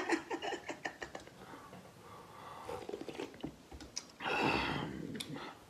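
Eating noodles from a stainless steel bowl: chopsticks tick against the bowl a few times, then a loud slurp lasting about a second, about four seconds in.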